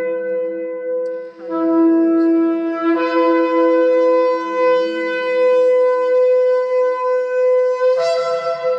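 Shofar (ram's horn) blown in long, steady held notes, with a short break about a second and a half in and a change in tone at about three seconds and again near the end.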